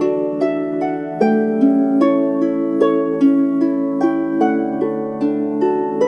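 Celtic harp music: an even run of plucked notes, about two and a half a second, each ringing on under the next.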